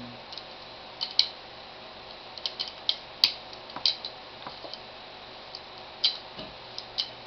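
Small metal clicks and clinks of 1911 pistol parts being handled and fitted together, coming irregularly, with the sharpest about a second in and just after three seconds.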